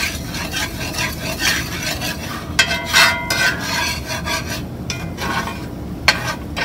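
Slotted metal spatula scraping and stirring a flour-and-oil roux in a cast iron skillet, repeated strokes over a light sizzle as the roux browns. One louder scrape comes about three seconds in.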